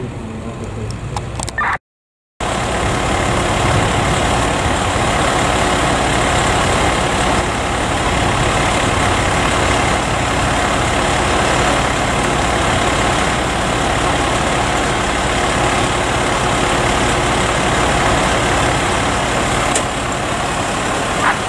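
Fire apparatus engine running steadily at close range, a loud, even mechanical noise with a low hum underneath. The sound cuts out completely for a moment about two seconds in.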